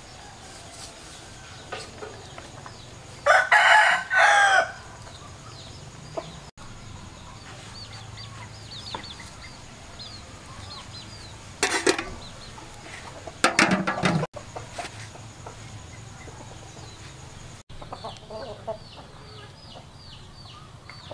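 A rooster crows loudly once, a call a little over a second long about three seconds in, over a yard of softly clucking chickens. Short, high, falling peeps repeat in the background, and two other short loud sounds break in near the middle.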